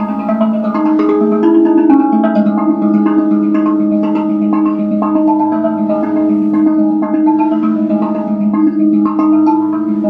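RAV drum, a handpan-shaped steel tongue drum, struck with wooden sticks in a quick, steady flow of notes, each ringing on under the next.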